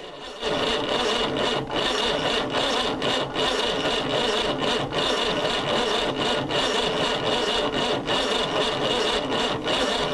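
1991 Iveco diesel engine being turned over by its starter motor without firing, starting suddenly and cranking slowly with a regular labouring dip about every 0.8 s: the battery is too weak to crank it fast.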